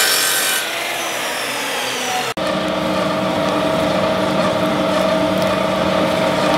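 Electric abrasive cut-off saw cutting through a branch of firewood with a bright, high-pitched scream, its pitch then falling. About two seconds in it gives way abruptly to a steady machine hum holding a few fixed tones.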